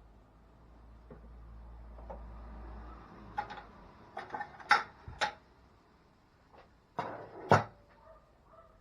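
A run of sharp knocks and clatters, about six in all, the loudest about halfway and again near the end, over a faint low hum during the first few seconds.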